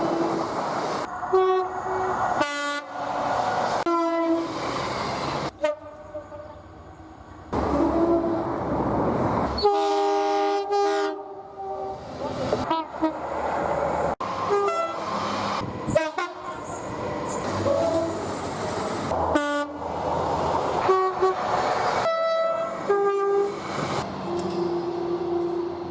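A run of British train horns, one recording after another, each sounding short blasts on two notes, with abrupt cuts between recordings. Train running noise lies underneath.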